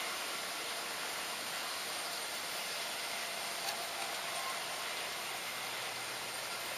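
Steady hissing run of an HO-scale model locomotive carrying the camera along the track, its motor and wheels on the rails heard close up, with one small click about three and a half seconds in.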